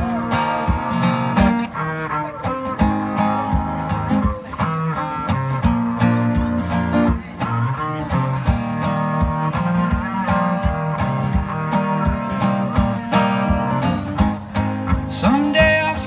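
Live acoustic guitar music, steadily strummed chords and picked notes in an instrumental passage of a song.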